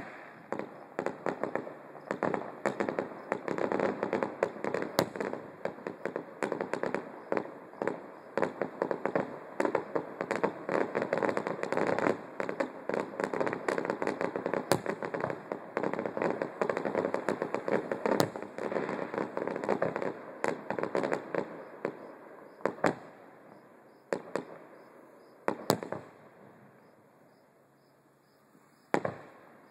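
Distant aerial fireworks display: a dense run of rapid bangs and crackle that thins out after about twenty seconds to a few isolated bangs.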